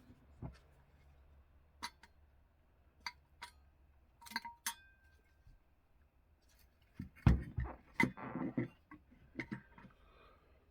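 Small metal tools and clock movement parts clicking and clinking against each other on a workbench: a few separate light clicks, one with a brief metallic ring about halfway through. A louder flurry of knocking and rattling as parts are handled follows in the second half.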